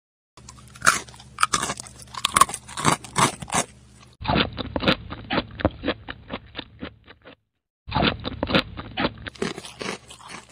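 Crunchy eating sound effect: a fast run of bites and chewing, broken by a brief silence about three-quarters of the way through.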